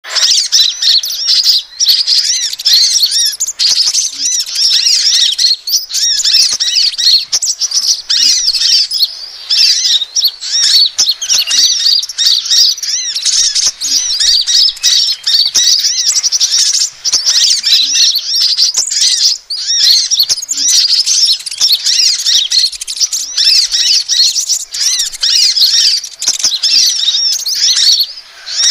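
Bird-lure recording of small songbirds calling without a break: a dense stream of rapid, high-pitched chirps and twitters, many overlapping. These are calls used to lure the kolibri ninja sunbird and the sepah raja (scarlet minivet).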